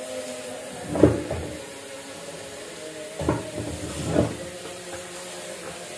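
Kitchen clatter: kitchenware knocked down on a counter four times, about one, one and a half, three and four seconds in, over a steady background hiss.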